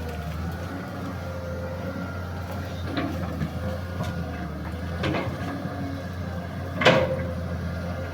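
Excavator diesel engine running steadily, with three sharp knocks or cracks about three, five and seven seconds in, the last the loudest.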